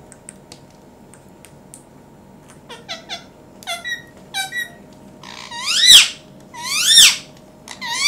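Indian ringneck parakeet calling. A few soft clicks come first, then a run of short chirps from about the third second. Near the end come three loud calls, each rising then falling in pitch, about a second apart.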